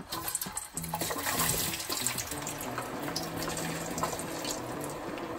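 Thick-cut Yukon Gold potato chips going into hot oil for deep-frying: the oil sizzles and bubbles up hard with a dense crackle, growing louder about a second in as more potatoes drop in, then holding steady.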